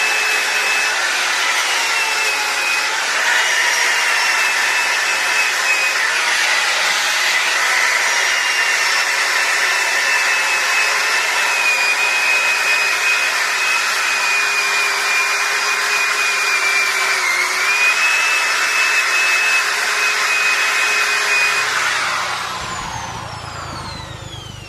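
Handheld electric woodworking power tool running at high speed with a steady whine, its pitch wavering slightly. About 22 seconds in it is switched off and spins down, the whine falling in pitch as it fades.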